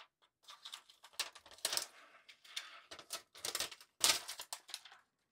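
Clear plastic protective film being peeled off a graphics card, crackling and crinkling in a run of short rustles, loudest about two seconds in and again about four seconds in.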